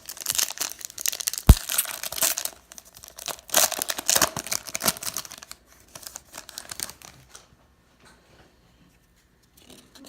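A baseball card pack's wrapper being torn open and crinkled, in dense crackling bursts for about seven seconds, with one sharp snap about a second and a half in; then only faint handling.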